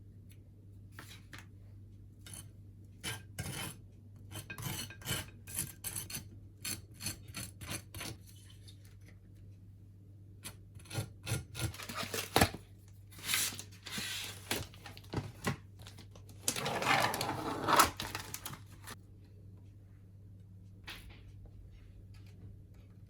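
Kitchen utensils clinking and knocking against dishes, then several seconds of louder scraping and rubbing, over a low steady hum.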